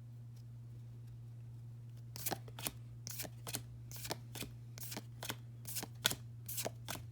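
Pokémon trading cards being flicked through one after another, a quick run of crisp card snaps and slides, several a second, starting about two seconds in. A steady low hum runs underneath.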